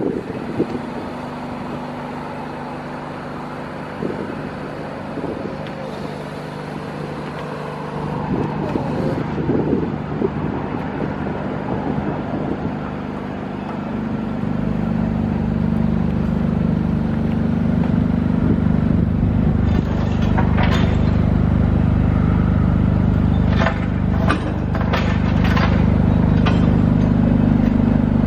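Generator engine of a mobile light tower running steadily, growing louder about halfway through. A few sharp clicks come near the end.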